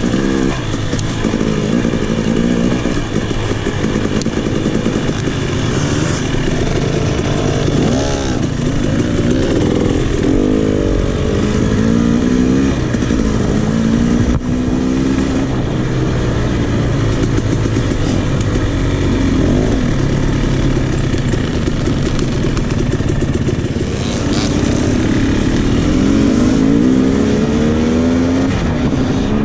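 KTM 300 XC dirt bike's 300 cc two-stroke single-cylinder engine, ridden on a trail. Its pitch rises and falls again and again as the throttle is opened and closed.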